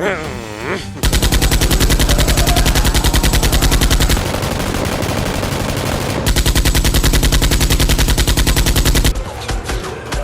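Rapid automatic gunfire, a machine-gun-style sound effect of the kind dubbed over toy blaster fights. It starts about a second in and runs for about eight seconds in a fast, even stream of shots, then cuts off.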